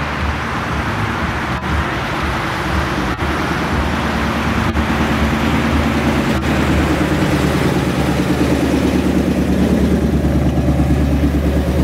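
Ford Mustang Shelby GT500 'Eleanor' V8 running at low revs as the car rolls slowly along. It is a steady low engine note that grows louder toward the end as the car passes close by.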